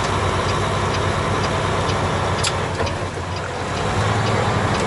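Semi-truck diesel engine running, heard inside the cab while driving. The engine eases off about three seconds in and pulls harder again about a second later, with faint regular ticking and a single click in the cab.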